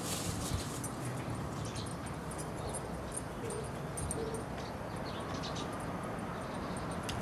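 Two dogs tugging at a stick, their paws scuffling and crunching through dry leaves and grass, with scattered crackles throughout.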